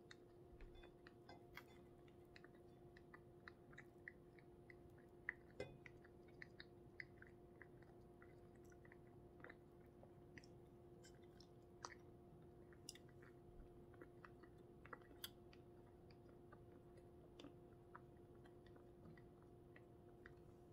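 Faint chewing of a person eating pizza: soft mouth clicks scattered throughout, a few sharper ones, over a steady low hum.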